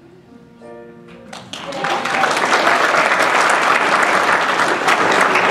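Guests clapping and applauding, breaking out about a second and a half in and holding loud and steady. Just before it, a brief held note sounds.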